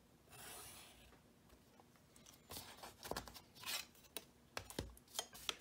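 A faint pencil stroke scratching along the edge of a plastic drafting triangle, then a scatter of light clicks and taps as the plastic triangle and ruler are lifted, slid across the paper and set down.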